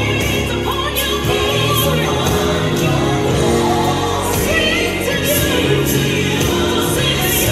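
Gospel song playing loudly: sung vocals over instrumental accompaniment with a steady beat.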